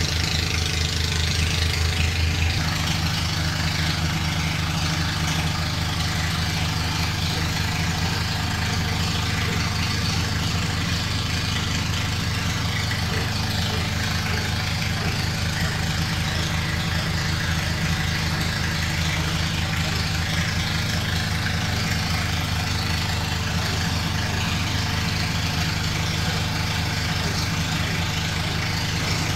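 Engine-driven insulation blowing machine on a box truck running steadily, feeding blown-in insulation through a long hose, with a low hum and fast even pulsing; slightly louder for the first couple of seconds.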